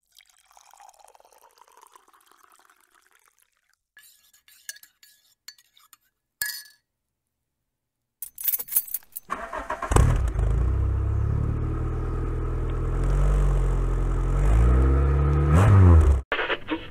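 Faint jingling and clicks, then a car engine is started: it catches about ten seconds in and idles steadily, revs briefly near the end, and cuts off suddenly.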